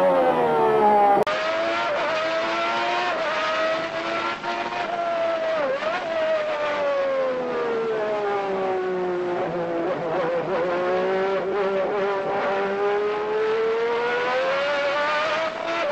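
McLaren-Honda 3.5-litre V12 Formula One engine heard from the cockpit. Its high-pitched note sinks slowly, then climbs again from about two-thirds of the way through as the car accelerates, with short wavers around four and six seconds in. About a second in, the note of another F1 V12, a Ferrari's, cuts off abruptly into this one.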